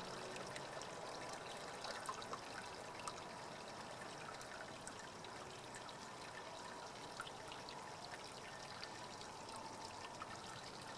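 Wort trickling steadily out of a brew-in-a-bag grain bag into the kettle below as the bag is squeezed after the mash, faint and even.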